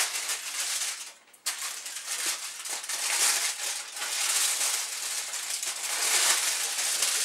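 Aluminium foil wrapping crinkling and rustling as hands handle and pull it open, with a brief pause about a second in.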